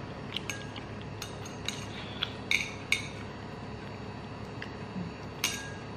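Metal chopsticks clinking and tapping against a ceramic bowl of noodles: several short, sharp clinks, scattered irregularly, the loudest about two and a half seconds in and again near the end.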